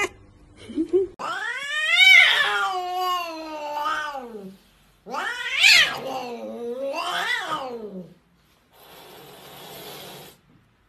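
A cat yowling: two long, wavering calls that rise and fall in pitch, then a hiss near the end.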